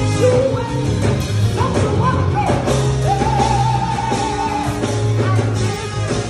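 Gospel choir singing with a live band of guitar and drums under a steady bass line, with one long held note about three seconds in.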